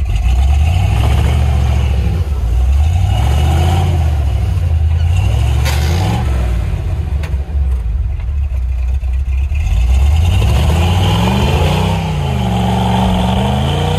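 Lifted square-body Chevrolet K5 Blazer's engine revving up and down over and over as it works through deep snow in four-wheel-drive low, with the highest revs in the last few seconds.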